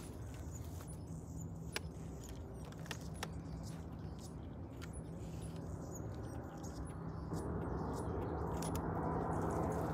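Jet airliner on approach: steady low engine noise that grows clearly louder from about seven seconds in as the aircraft nears, with a few light clicks over it.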